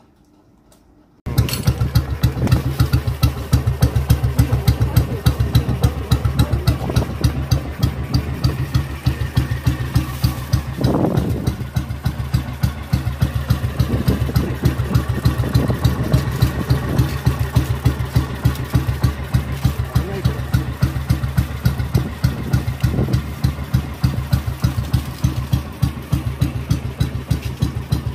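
Kawasaki 250 Meguro SG's single-cylinder four-stroke engine idling steadily after repair, coming in abruptly about a second in, with a few short rises in engine speed.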